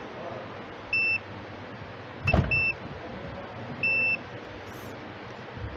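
A digital multimeter's continuity buzzer beeps three times, short high tones about a second and a half apart, as its probes are touched across blade fuses. Each beep shows that the fuse conducts and is intact. A sharp click sounds just before the second beep.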